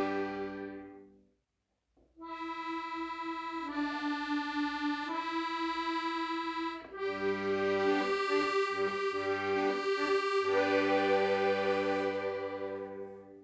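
Accordion playing the closing phrase of the song in long held notes and chords: a chord dies away about a second in, a short pause follows, then the held chords resume and fade out on the final chord near the end.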